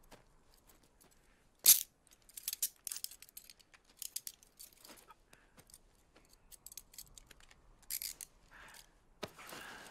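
Metal handcuffs being snapped onto a kneeling man's wrists: one sharp metallic click a little under two seconds in, then several runs of small ratcheting clicks and jangling as the cuffs are closed, with clothing rustling.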